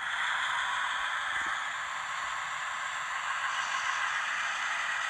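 Broadway Limited N scale E6A diesel model's onboard sound decoder playing its diesel engine running sound through the tiny speaker: a steady, thin engine noise with almost no bass, as the locomotive creeps along at its slowest speed.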